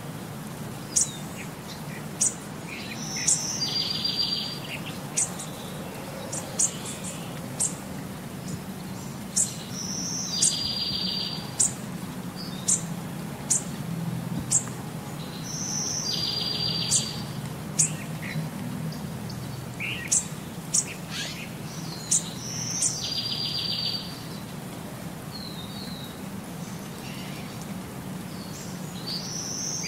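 Birds chirping and calling, with a short buzzy trill about every six seconds that repeats the same each time, over a low steady hum: a looped birdsong background track.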